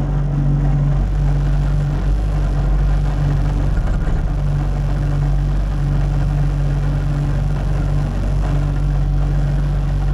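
Cat 289D3 compact track loader's diesel engine running steadily under a loud, even low hum.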